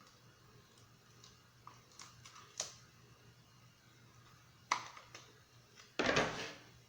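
Faint clicks and taps of a plastic bottle being handled while a small hole is made in it with a hot-tipped soldering iron, followed near the end by a short, louder rustle.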